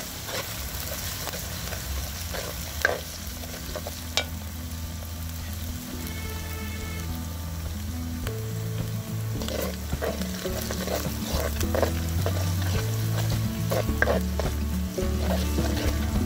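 Sliced onions sizzling in hot coconut oil in a clay pot, with a wooden spoon stirring and scraping through them. Background music runs underneath and gets louder about halfway in.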